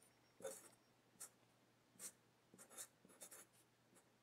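Faint scratching of a Sharpie felt-tip marker writing on paper, in several short separate strokes as a word is lettered.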